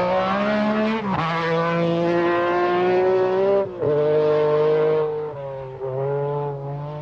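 MG Metro 6R4 rally car's V6 engine at high revs, pulling hard through the gears: the pitch climbs and drops sharply at upshifts about a second in and again near four seconds in. It gets quieter over the last couple of seconds as the car drives away.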